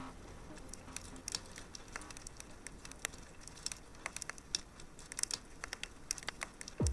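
Fireplace crackling: a scatter of irregular small pops and snaps. A deep electronic kick drum of the synth music bed comes in right at the end.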